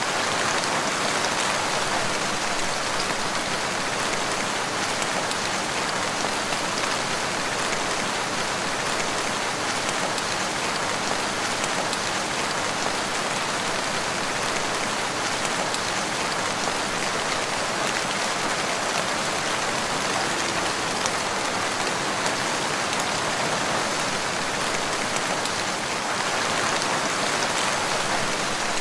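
Steady rain falling, an even hiss of many small drops with no pauses or changes.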